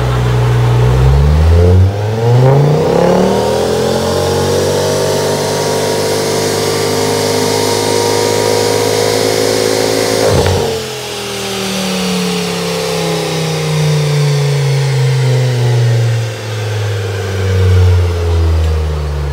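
Car engine making a full-throttle pull on a chassis dyno. The revs climb quickly over the first few seconds, then rise slowly and steadily under load until about ten seconds in. There they cut off sharply and the revs wind down for the rest.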